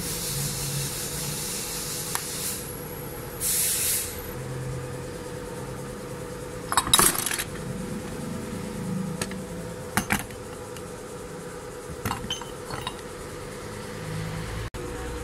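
Small steel delivery-valve parts of a diesel injection pump clinking against each other and the pump body as they are handled, a few scattered clinks with the loudest about seven seconds in. Two short hisses come near the start, over a steady faint hum.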